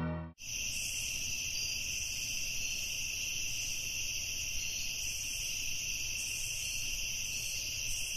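Chorus of crickets: a steady, high, unbroken trilling that starts about half a second in, right after music cuts off.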